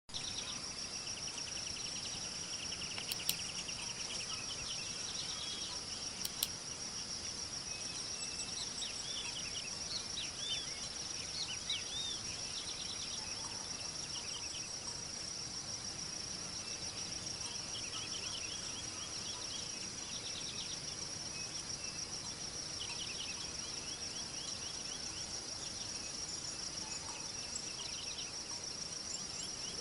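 Steady, high-pitched chirring of insects, with scattered short chirping calls from other animals. There are two sharp clicks, one a few seconds in and one about six seconds in.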